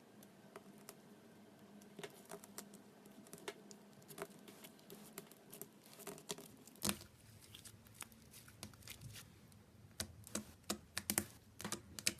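Slime being squished and poked by hand, giving irregular small clicks and pops, sparse at first and coming thicker and sharper near the end, with one louder knock about two-thirds of the way through.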